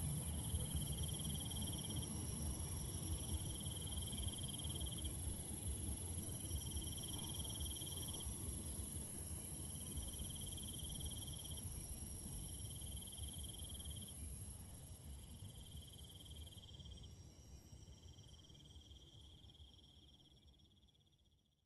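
Night insects, crickets chirping: a steady high-pitched shrill with a lower trill that comes in pulses of a second or two every few seconds, over a low rumble. It all fades out over the last few seconds.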